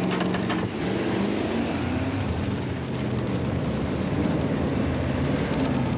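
Fire engine driving, its engine running with a steady hum.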